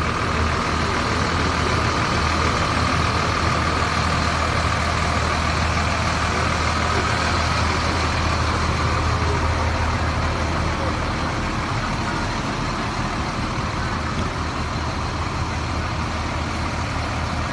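Steady running of an idling vehicle engine, an unbroken rumble with a constant low hum.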